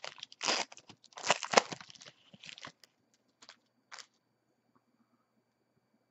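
Foil wrapper of a trading card pack crinkling and tearing as it is pulled open: a run of sharp crackles for about two and a half seconds, then two short rustles around four seconds in.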